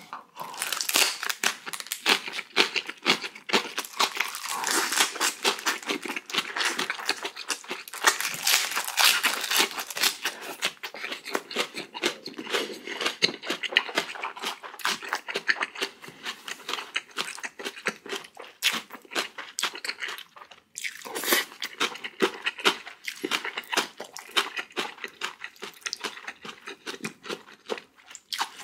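Close-miked chewing with dense crunching and crackling, pausing briefly about twenty seconds in.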